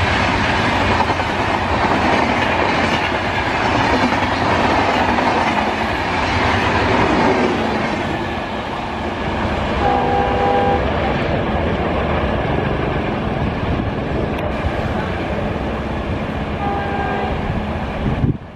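Passenger coaches of a diesel-hauled Indian Railways express rushing past at speed with wheel and rail clatter, easing off as the train draws away. A short chord from a diesel locomotive horn sounds about halfway through, and another brief one near the end.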